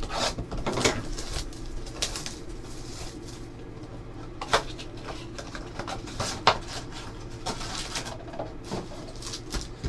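A Panini Prizm basketball blaster box being handled and torn open by hand: cardboard and wrapper rustling and tearing, with scattered sharp clicks and light knocks on the table over a faint low hum.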